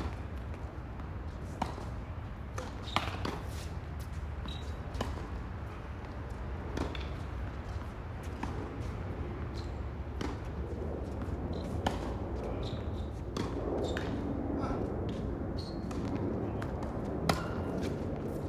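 Tennis rally on an outdoor hard court: sharp pops of tennis balls struck by racket strings and bouncing on the court, every second or two, over a steady low hum.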